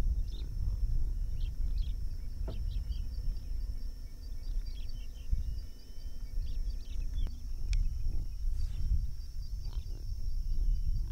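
Outdoor field ambience dominated by wind rumbling on the microphone, rising and falling in gusts, with scattered faint bird chirps and a steady thin high whine.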